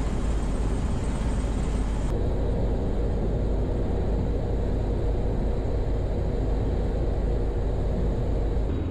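V-22 Osprey tiltrotor running on the ground, a steady turbine rush, with a faint steady hum joining about two seconds in. Its rotor blades are being folded for stowage.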